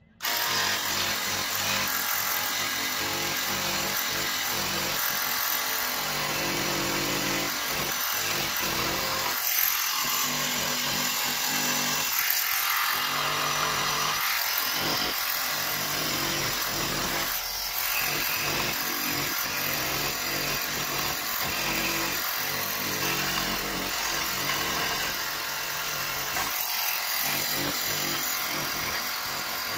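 Jigsaw fitted with a Collins Coping Foot running steadily as it saws a cope into the end of a length of crown molding. It starts abruptly.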